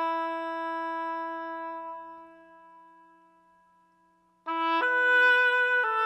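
A long held woodwind note fades slowly to near silence over about four seconds. About four and a half seconds in, a new woodwind melody starts, moving in steps from note to note.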